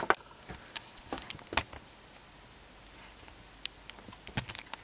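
Handheld camera handling noise: about six light, scattered clicks and knocks over a quiet room background as the camera is moved around the workbench.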